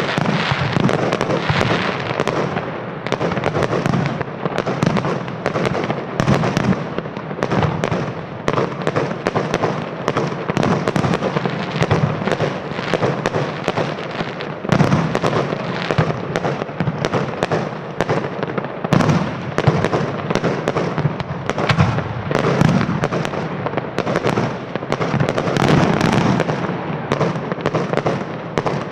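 Aerial fireworks display: shells bursting in a dense, continuous barrage of rapid bangs and crackling, with no let-up.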